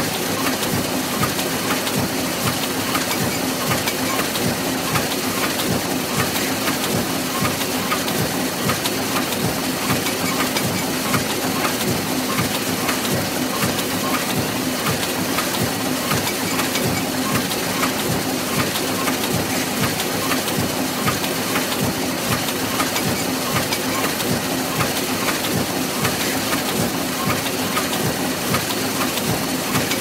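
Book press machine running: a steady, dense mechanical clatter of small irregular clicks over a continuous low hum.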